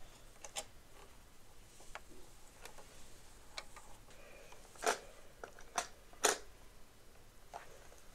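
Light clicks and knocks of hard plastic toy cars and track pieces being handled, with a few sharper knocks about five and six seconds in.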